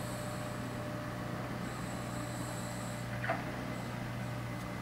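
A steady low hum, with a brief tap about three seconds in.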